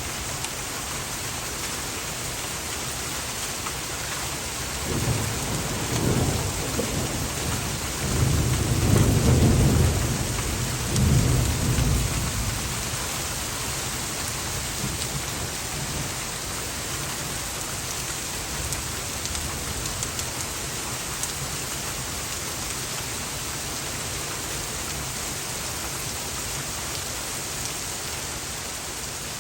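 Heavy rain falling steadily, with a rolling rumble of thunder that builds about five seconds in, peaks around nine seconds and dies away by about twelve seconds.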